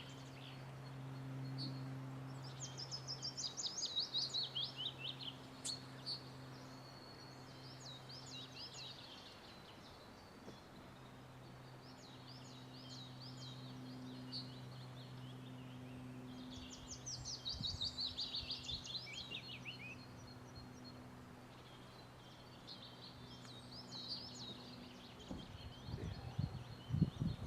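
Wild songbirds singing: short high chirping phrases throughout, with a descending trill of about three seconds sung twice. A steady low hum runs underneath, and a few low rumbles come near the end.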